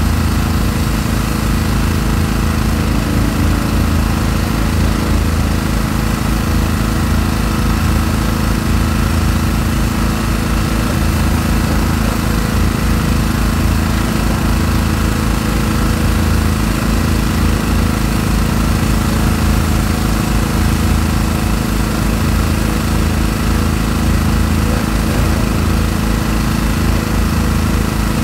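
High-reach demolition excavator's diesel engine running steadily under load.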